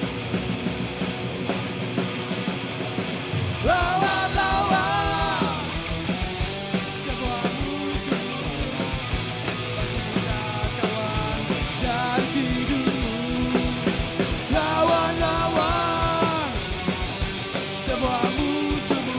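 Live rock band playing loud and fast, punk-rock style, with drums and guitars throughout. A high melody line comes in about four seconds in and again about fifteen seconds in.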